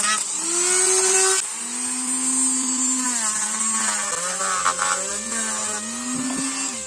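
Handheld rotary tool whining at high speed, its pitch dipping and recovering as it bites into white plastic board, over a steady high grinding hiss. A cutting disc cuts a curve first; partway through, a sanding drum grinds the board's edge. The sound stops suddenly at the end.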